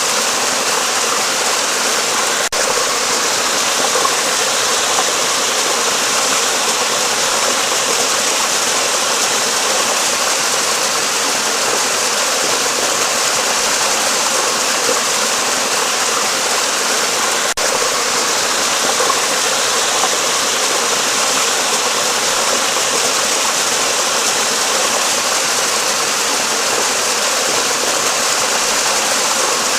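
Running water rushing steadily, as from a stream or waterfall.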